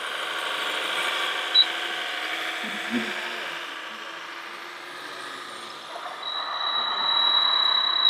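Electric drive motors and gearboxes of radio-controlled model construction machines whining as they move, with one short click. A thin, steady high whine sets in about six seconds in.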